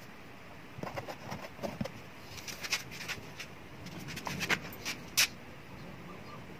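Light handling noises on a classical guitar's wooden top: scattered soft clicks, taps and brief scratchy rubs of fingers and masking tape around the bridge, with one sharper click about five seconds in.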